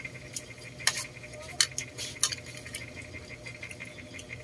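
Metal spoon and fork clinking and scraping on a plate while eating, with a few sharp clinks in the first half, over a steady low hum.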